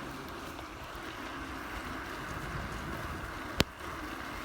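Steady rushing noise of wind on the microphone and tyres on wet, slippery ground while riding, with one sharp click about three and a half seconds in.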